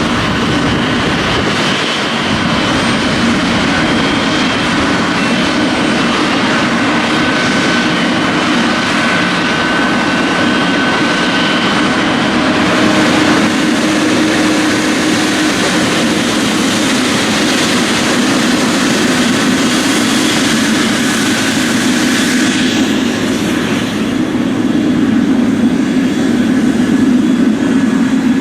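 GE90-115B turbofan engines of a Boeing 777-300ER running loudly at high power, a deep rumbling hum with a thin steady whine over it; the high hiss swells and then drops away sharply a little past two-thirds through.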